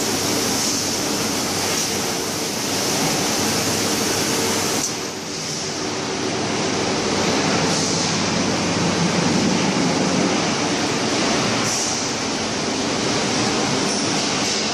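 Steady machinery noise of a steel drum production line running, with a faint steady hum under it.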